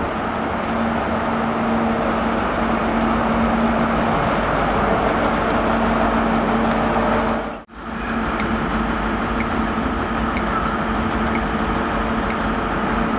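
Class 43 HST power car's MTU diesel engine running steadily as the train moves along the platform, a steady drone with a hum in it. The sound drops out for a moment about eight seconds in.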